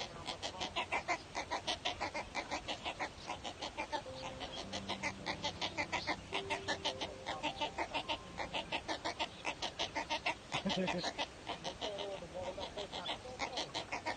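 Waterbird nestlings in a breeding colony calling, a rapid run of short repeated notes at about five a second, with a few longer held notes among them.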